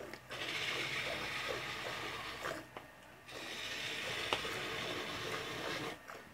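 Jets of milk squirting from a cow's teats into a metal pot already full of frothy milk during hand-milking, a foamy hissing that stops briefly about midway.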